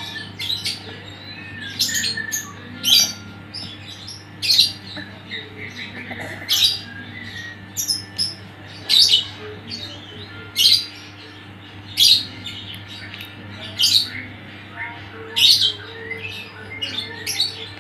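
A bird chirping, short sharp high calls repeating about every one to two seconds, over a steady low hum.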